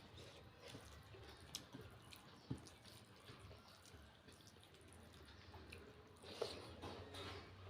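Faint eating sounds: soft chewing and a few small wet mouth clicks, a little louder near the end.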